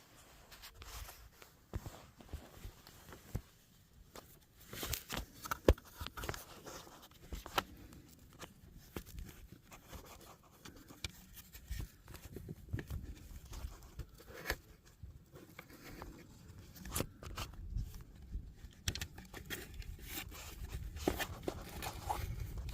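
Scattered light clicks, taps and rustling of hands and tools fiddling at a seized turbo V-band clamp, with one sharper knock about six seconds in, over a low wind rumble.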